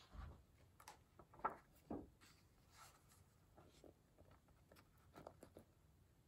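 Near silence with a few faint rustles and soft taps of a picture book being handled and its pages turned.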